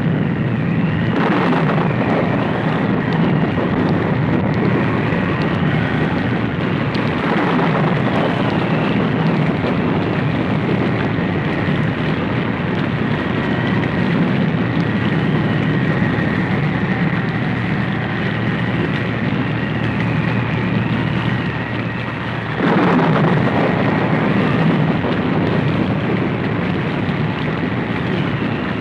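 Stormy-night sound effect: a loud, steady roar of wind and storm noise with a faint high whistling tone over it. It swells suddenly three times: about a second in, around seven seconds in, and about two-thirds of the way through.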